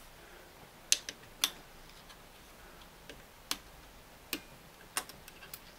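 Sparse small metal clicks and taps, about seven spread irregularly over a few seconds, as a screwdriver and a small screw knock against the light fixture bracket inside a Singer Model 337 sewing machine's head while the screw is being lined up.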